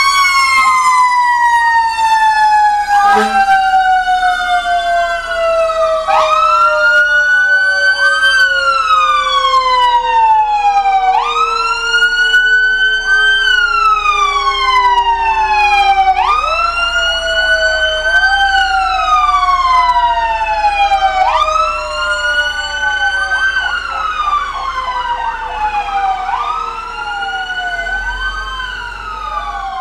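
Fire apparatus sirens sounding as the trucks pass: one wails up and down about every two and a half seconds, while another's long tone sinks slowly over about sixteen seconds. Near the end the sound switches to a fast warbling yelp.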